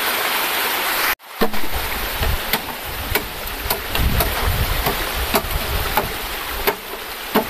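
Running stream water, then a machete chopping into a green bamboo pole, a series of sharp irregular knocks about once or twice a second over the continuing rush of water.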